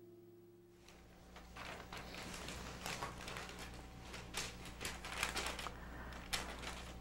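Faint rustling and light ticks of paper sheets being handled by gloved hands on a table, scattered and irregular, over a steady low electrical hum that begins about a second in.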